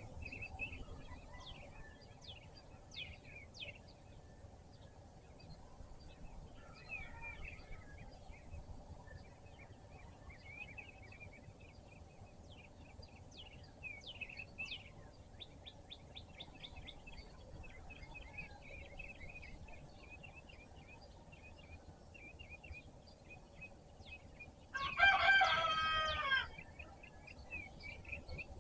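Small birds chirping and singing in quick, repeated notes throughout. About 25 seconds in, a rooster crows once, the loudest sound, lasting about a second and a half.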